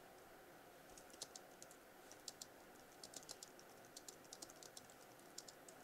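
Faint typing on a Moshi Luna low-profile keyboard: soft, irregular key clicks starting about a second in, the keystrokes nearly silent.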